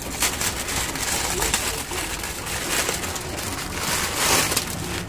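Packaging rustling and crinkling as a parcel is opened by hand, loudest about four seconds in.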